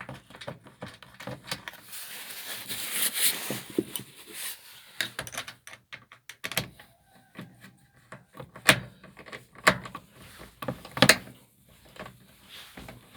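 Irregular knocks and clicks of a loose metal bracket plate on a Fiat Doblo van being handled and tested, after a piece of rubber hose was wedged under it to stop it rattling.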